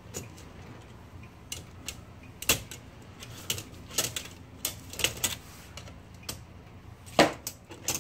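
Irregular sharp metal clicks and clacks from the parts of an Olivetti Lettera 32 typewriter being handled and worked during disassembly. The loudest clacks come about two and a half seconds in and near the end.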